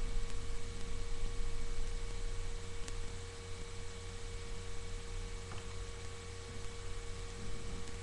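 Steady electrical hum and low rumble with a faint constant tone and hiss, the self-noise of a webcam microphone recording a quiet room. Two faint ticks come through about three seconds and five and a half seconds in.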